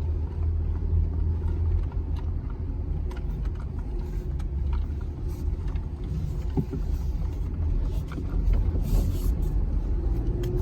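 Steady low rumble of a 2020 Jeep Gladiator Rubicon's 3.6-litre Pentastar V6, heard from inside the cab, with scattered light clicks and rattles.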